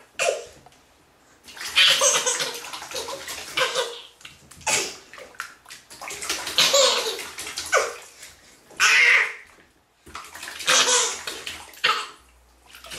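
A baby splashing bath water with its hands in repeated bursts, laughing along with the splashes.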